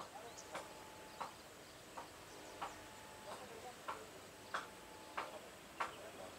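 Faint, regular ticking, about one and a half ticks a second, with a few faint high chirps.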